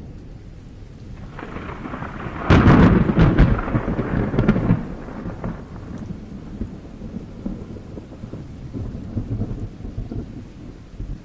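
Thunder during heavy rain. A rumble swells about a second in, breaks into a loud crack with several sharp claps, then rolls away over a few seconds, leaving the steady sound of rain.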